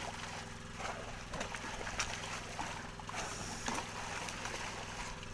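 Water splashing and churning as a long-handled dip net is scooped through a dense shoal of squid at the surface, over a steady low motor hum.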